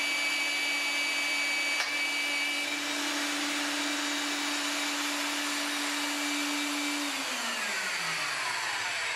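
Magnetic drill (BDS MAB 485SB) running at high speed with an annular cutter boring through metal plate, a steady motor whine, with one sharp click a little under two seconds in. About seven seconds in the motor is switched off and winds down, its pitch falling steadily, as the hole is finished.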